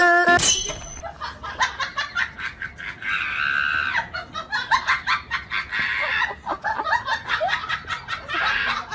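A person laughing hard in quick repeated bursts, after plucked-string music cuts off suddenly at the very start.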